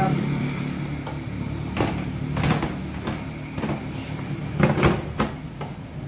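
Thick transparent plastic washing-machine lid being handled, giving several knocks and clatters, the loudest about five seconds in. A steady low hum runs underneath.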